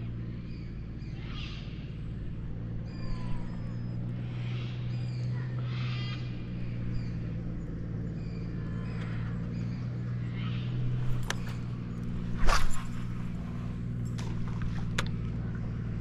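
A steady low motor hum, as of a small boat motor, under a series of high, wavering animal calls about once a second. Near the end come a few sharp clicks and one loud knock.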